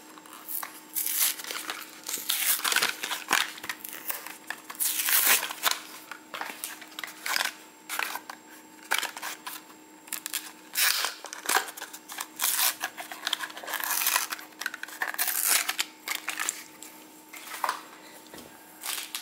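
A plastic blister pack crinkling and crackling as it is pried open by hand, and its cardboard backing tearing, in irregular bursts of rustles and rips. A faint steady hum runs underneath.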